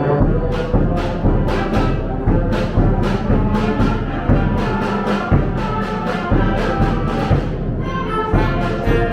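Orchestral music with brass and percussion, playing at full volume to a steady, march-like beat.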